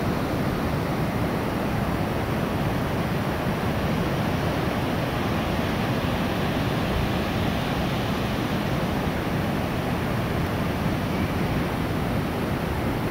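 Steady wind buffeting the microphone, mixed with the wash of sea surf breaking on the rocks below the cliffs; an even, unbroken rush without distinct events.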